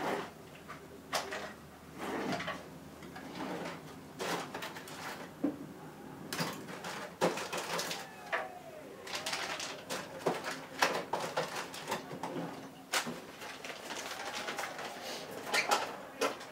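Plastic drone propellers and their packaging being handled: irregular clicks, taps and rustles, with a few faint short squeaks.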